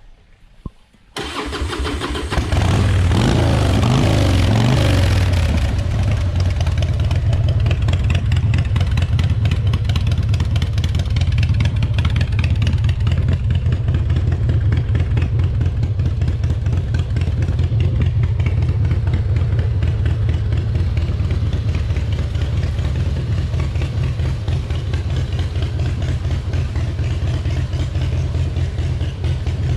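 Year-2000 Harley-Davidson Fatboy's 88-cubic-inch Twin Cam V-twin cranked on the starter about a second in and catching, revving briefly and then settling to a steady idle on its freshly adjusted carburettor.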